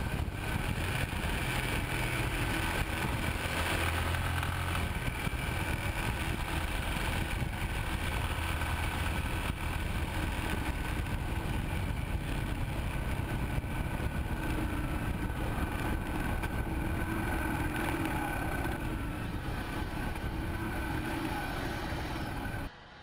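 Yamaha XTZ 250 Ténéré motorcycle riding at road speed, heard from a camera mounted low by a wheel: a steady rush of wind and road noise over the single-cylinder engine's drone. Right near the end the sound drops suddenly to a quieter, thinner rush.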